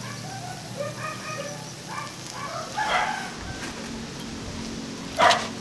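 Chickens clucking in a run of short calls, with one louder call about three seconds in. A short, sharp, louder sound comes just before the end.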